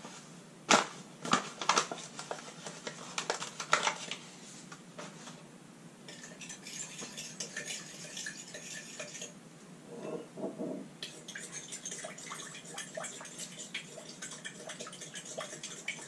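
Glassware and a spoon handled on a kitchen counter: several sharp knocks in the first few seconds, a few seconds of hiss, then a run of light clinks and scraping as citric acid is stirred into water in a glass measuring cup.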